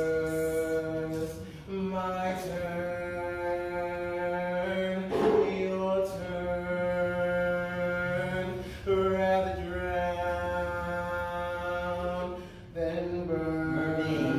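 Wordless chanted singing in long held notes, each lasting a few seconds with short breaks between, over a steady low drone.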